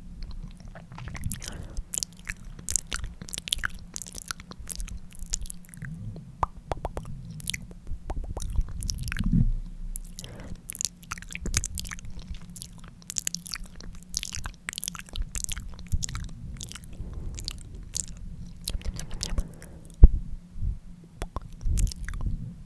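Close-miked ASMR lip licking: a dense, irregular run of wet smacks and clicks from the lips and tongue, with one louder pop near the end.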